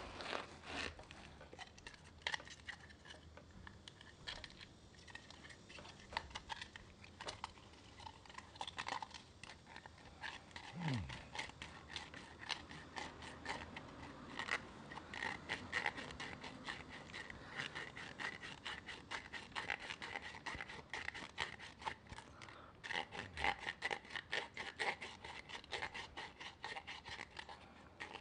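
Rapid, irregular scraping and rubbing of a hand tool against a PVC pipe cap, working the edge of a freshly drilled hole.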